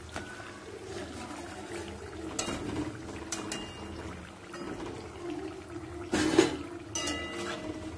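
Gujiyas deep-frying in hot ghee in a kadhai, bubbling and sizzling steadily. A steel slotted spatula scrapes and clinks against the pan a few times as the fried pieces are lifted out, each clink ringing briefly. The loudest clink comes about three-quarters of the way through.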